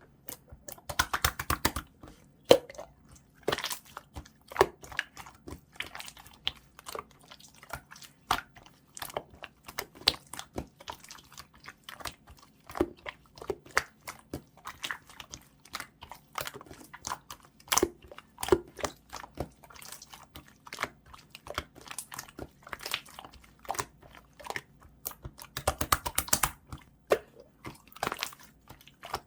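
Clear slime being squished and poked by hand, giving irregular sharp clicks and pops, with denser runs of crackling about a second in and near the end.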